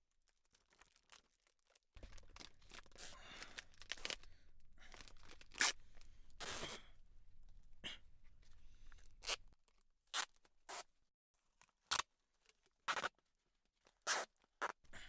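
Foley handling sounds: a series of short rustling and scraping strokes, like cloth or material being handled, over a low steady hum that stops about two-thirds of the way in; after that, isolated short strokes with quiet between them.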